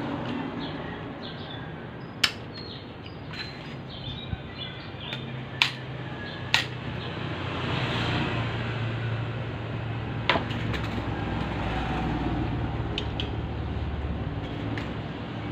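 A hammer gives a few sharp, irregularly spaced taps, driving the connector insert into the end of a Shimano BH90 hydraulic brake hose held in a clamp tool. A steady low rumble runs underneath and swells in the second half.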